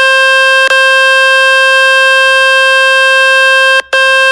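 Samsung Galaxy S23 FE playing the loud, steady buzzing cleaning tone from the Fix My Speaker website, meant to shake dust and water out of the speaker. It breaks off briefly just before the end, then carries on.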